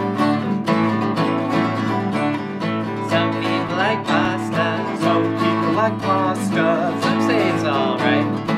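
Two acoustic guitars strummed together in a steady rhythm, playing a song's intro.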